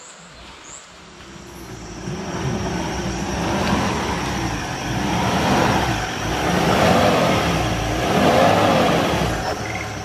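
Off-road 4x4 truck engine revving hard under load, its pitch rising and falling repeatedly, as it strains to climb a steep trail. The sound builds over the first two seconds.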